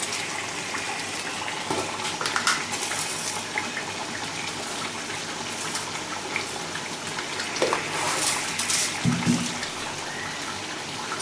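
Steady watery hiss of a pot of rice at a rolling boil on the stove, with a few light clicks of utensils.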